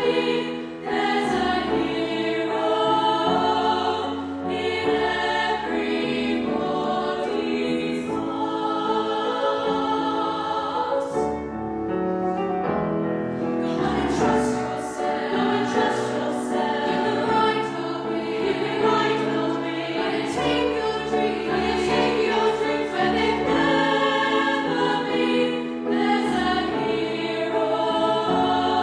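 Youth choir singing a song in several parts with piano accompaniment, the voices ringing in a church.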